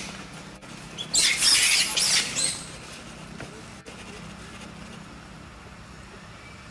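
A macaque's harsh screeching for about a second and a half, starting about a second in, followed by a low steady background hum.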